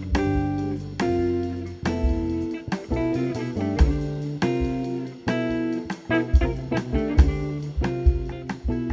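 Live instrumental band music: guitar chords and melody over double bass, with drum hits keeping the beat.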